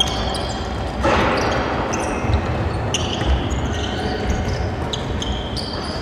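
Basketball game sounds: sneakers squeaking on a hardwood court in many short high chirps, with the ball bouncing in a few low thumps.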